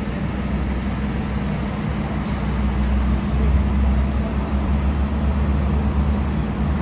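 Vehicle engine idling: a steady low rumble with a hum, swelling a little around the middle, over street traffic noise.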